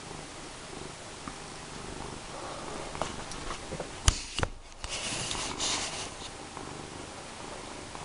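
A domestic cat purring steadily while being groomed with a brush. About four seconds in there are two sharp knocks, followed by a second or so of rustling.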